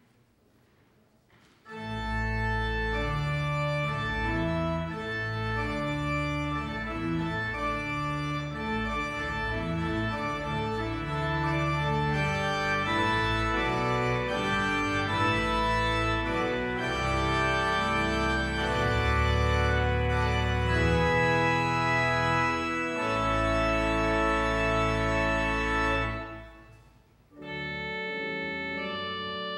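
Organ playing held chords over a deep bass line, starting about two seconds in after near silence; it breaks off briefly near the end, then a new passage begins.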